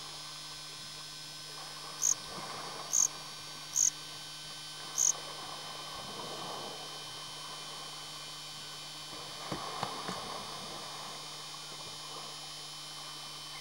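Steady electrical hum with faint water splashing as an elephant bathes in a river, swelling around six seconds in and again near ten seconds. Four short, high chirps sound between about two and five seconds in.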